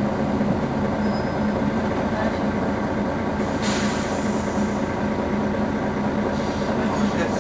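Mercedes-Benz Citaro Facelift city bus engine idling steadily with a constant low hum while the bus stands at a stop.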